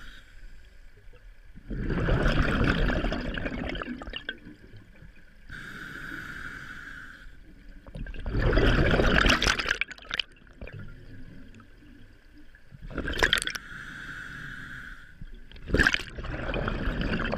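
Scuba diver breathing through a regulator, recorded underwater: each inhale is a steady hissing whine, and each exhale is a loud rush of bubbles, repeating in slow breaths every several seconds.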